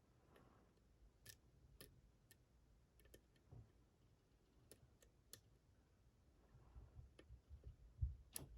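Faint, scattered clicks of a lock pick working the pins in a pin-tumbler lock's keyway, with soft low knocks of the lock and tools being handled near the end.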